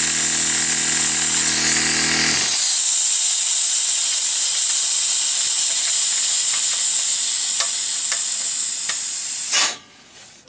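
12 V direct-drive air compressor running, then stopping about two and a half seconds in, while compressed air hisses out loudly and steadily through a check valve that is staying open when it should shut. The hiss goes on after the motor stops and cuts off suddenly with a short burst near the end.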